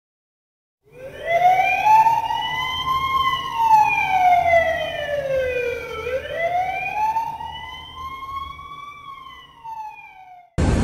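Emergency vehicle siren in a slow wail, sliding up and down in pitch twice. It starts about a second in and fades away near the end.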